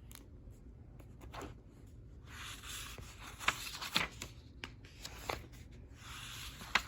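Pages of a picture book being handled and turned: paper rustling and sliding about two seconds in and again near the end, with a few light clicks.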